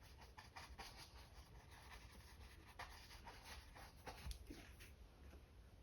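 Faint, irregular taps and scratches of a mop brush dabbing and twisting paint onto a stretched canvas.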